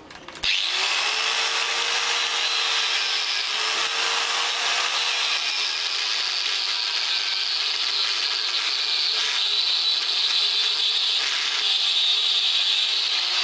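Angle grinder cutting slots into a laminated steel transformer core, a steady high grinding that starts abruptly about half a second in. The motor's whine sags slightly and recovers a few times as the disc bites into the steel.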